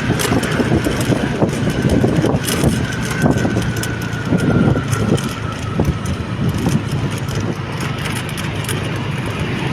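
A motor vehicle running steadily, a low engine hum under rough road and wind noise, with a faint tone sliding slowly down in pitch.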